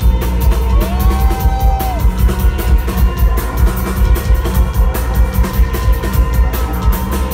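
Live rock band playing loudly through a concert PA, with a steady drum beat and heavy bass, heard from within the audience. A short rising tone, held for about a second, sounds over the music near the start.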